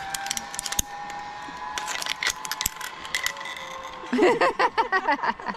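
Zipline trolley pulleys running along the steel cable with a steady whine that slowly drops in pitch, mixed with sharp clicks and rattles. About four seconds in, a loud run of quick rising-and-falling pitched sounds comes in.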